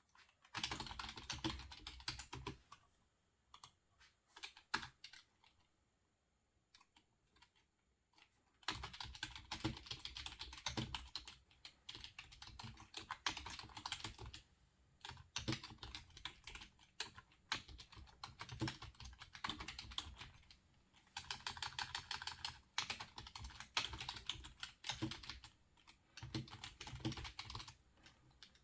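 Quiet typing on a computer keyboard. A short burst of keystrokes comes first, then a few scattered taps for several seconds, then long runs of steady rapid typing broken by brief pauses.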